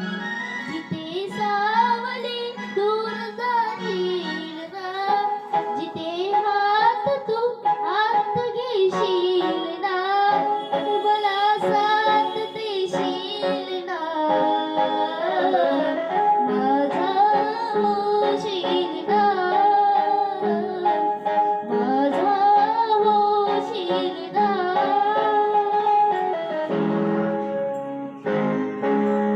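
A young girl's voice singing a melodic Indian film-style song line with vibrato and glides, over a sustained keyboard accompaniment.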